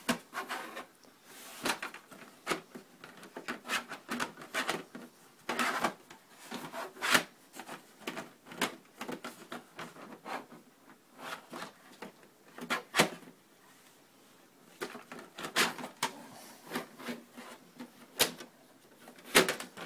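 Irregular plastic clicks, knocks and rubbing from an HP 2652 printer-scanner's casing as it is handled and turned over by hand.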